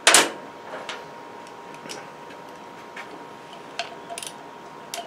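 A sharp knock as a plastic lawnmower carburetor is set down on the workbench, then light, irregular ticks and clicks as a nut driver is fitted to its float-bowl bolts and worked.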